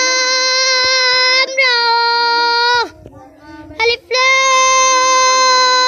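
A young boy chanting aloud in a high, sing-song voice from a primer of Arabic-script letters, drawing each sound out into long, level held notes. Two held notes, a pause for breath a little under three seconds in, then another long held note.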